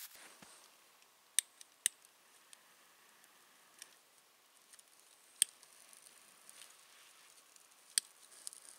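Dry twig kindling being lit for a wood fire: a few sharp snaps and clicks, four loud ones spread over several seconds, over a faint hiss. Small crackles grow denser near the end as the flame catches.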